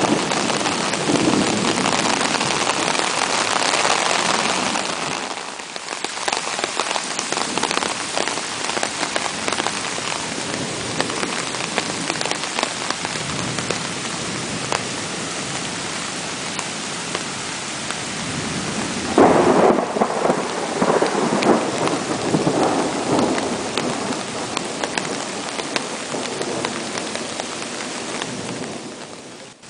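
Heavy rain pouring onto standing water and grass, with storm runoff streaming across the ground. The downpour is loudest at first, eases slightly, then swells again briefly about two-thirds of the way through.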